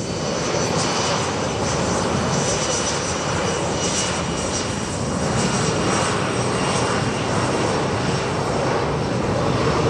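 Airplane engines running loud and steady, with faint high whining tones on top.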